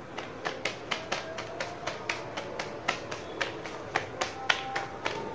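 Phulka dough being slapped from palm to palm to stretch it thin, a quick steady run of sharp slaps, about four a second.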